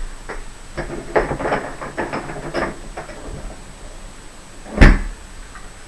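Handling noises from an AR-15 rifle being moved to examine its bore: a run of light clicks and rustles, then one loud knock about five seconds in.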